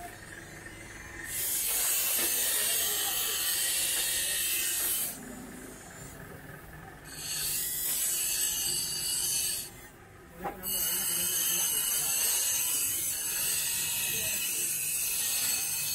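Steel blade being ground on a spinning bench grinding wheel: a high, hissing grind in three long passes with short breaks between.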